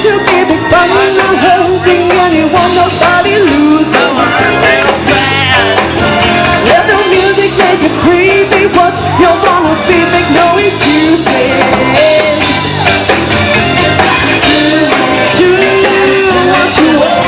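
Live band playing a loud, upbeat pop song, with a lead vocal sung over drums, bass and other instruments.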